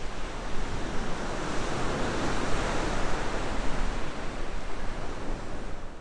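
Ocean surf sound effect: a steady rush of breaking waves.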